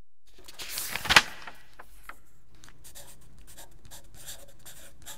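Soft scratching and rustling over a steady low hiss, with one sharp, louder rustle about a second in and a few faint ticks after.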